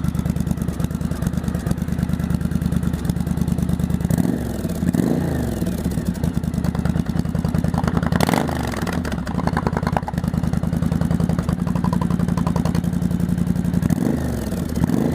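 Yamaha XV1100 Virago V-twin idling through short straight header pipes fitted with homemade baffle inserts. The throttle is blipped briefly a few times, the revs rising and falling each time.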